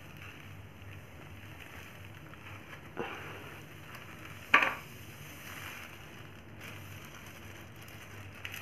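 Rangoli powder poured from a thin plastic bag into a plastic tub, with faint rustling of the bag. Two sharp taps of plastic come about three seconds in and a second and a half later, the second one louder.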